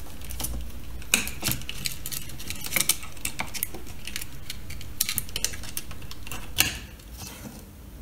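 Scattered light clicks and taps of small hard parts being handled, about a dozen in all, the sharpest a little after one second and near the seven-second mark, over a faint low hum that fades about seven seconds in.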